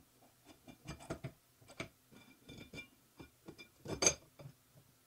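Aluminium plates clinking and knocking against a metal jig's steel rods and fittings as they are set in place by hand. About a dozen light metallic clicks and clinks, with a louder knock about four seconds in.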